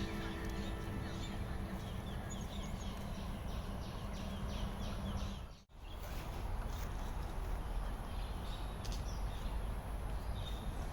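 Steady outdoor background noise with a run of short high calls, two or three a second, in the middle. Background music fades out in the first couple of seconds, and the sound drops out briefly just past the middle.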